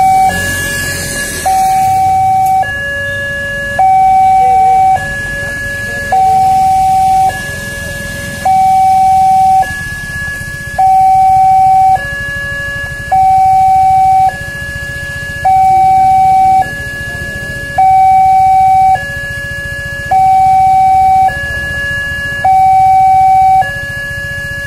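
Indonesian railway level-crossing warning alarm sounding while the barrier is down: an electronic two-tone signal that alternates a higher and a lower tone, each held about a second, in an even repeating cycle. The higher tone is the louder of the two. It is the warning that a train is approaching and the crossing is closed.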